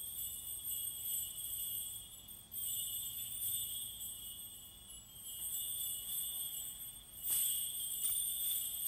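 Metal percussion instruments ringing with a steady, bright, high jingling tone. A fresh stroke makes it louder about two and a half seconds in, and a sharper strike brightens it again a little past seven seconds.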